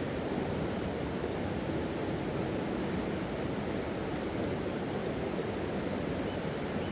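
Flowing water making a steady, even rush, with a faint low crystal singing bowl tone held for a couple of seconds in the first half.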